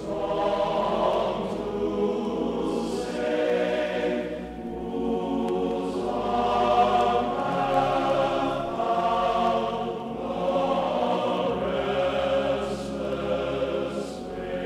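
Background choral music: a choir singing long, slow held chords that change every few seconds.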